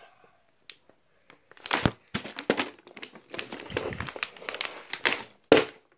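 Plastic crinkling and rustling in irregular bursts, starting about a second and a half in, with a sharper crackle near the end.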